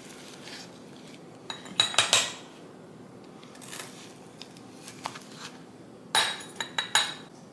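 Metal spoon scraping and clinking against a bowl and a drinking glass while scooping food, in two busier spells about two seconds in and again near the end, with a few lighter knocks between.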